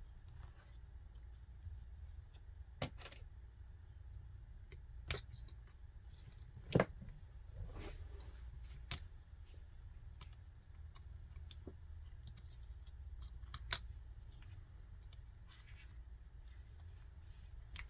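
Scattered sharp clicks and taps of hand tools and plastic parts as a laptop is taken apart, a few seconds between each, over a low steady hum.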